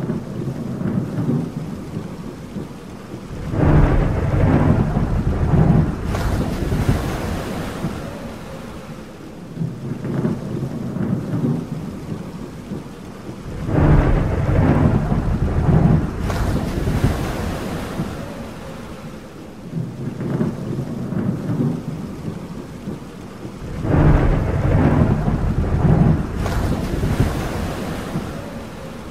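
Thunderstorm: thunder rolls rumbling loudly three times, about ten seconds apart, each lasting two to three seconds, with softer rumbles between them over steady rain.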